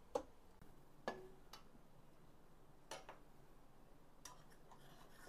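Near silence broken by about five faint, separate clicks and light knocks of kitchenware being handled.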